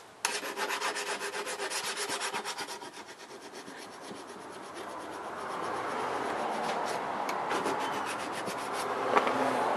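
A coarse diamond hone scraping back and forth along a steel lopper blade to sharpen it, a rasping rub. The strokes come quickly, about five a second, for the first three seconds, then the scraping goes on softer and more even.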